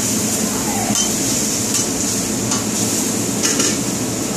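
Food sizzling steadily on a hot flat-top griddle, with a few sharp clacks of a metal spatula against the griddle plate.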